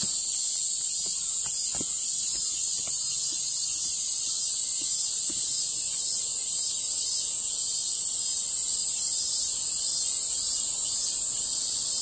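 Cicadas in a loud, steady, high-pitched drone that does not let up, with a few faint clicks in the first couple of seconds.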